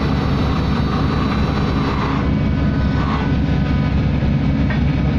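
Steady, loud low drone of a survey ship's engines and machinery, with faint steady tones above it.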